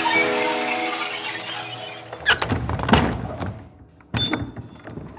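Background music fading out over the first two seconds, then a wooden door being handled: several sharp clicks and knocks about two, three and four seconds in.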